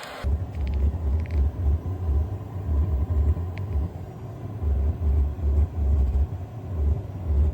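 Vevor diesel heater running with a low, uneven growl that swells and fades every second or so, with a few faint clicks. It has been burning a used hydraulic oil and diesel mix and its exhaust muffler is carboned up.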